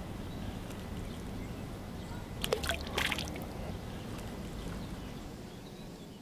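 A small object splashing into water, two quick splashes about two and a half and three seconds in, over a steady low rumble that fades away near the end.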